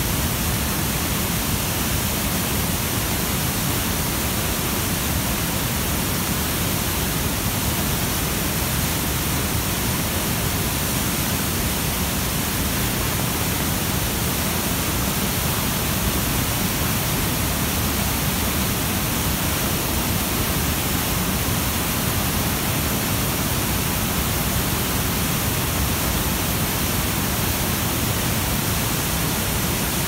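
Rain-swollen, muddy stream in flood rushing through rapids and small falls over rocks: a steady, unbroken rush of white water.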